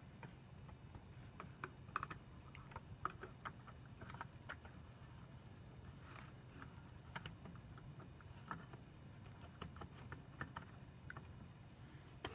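Faint, scattered light clicks and taps of small internal parts of a 2010 Mac Mini being handled and fitted back together, over a low steady hum.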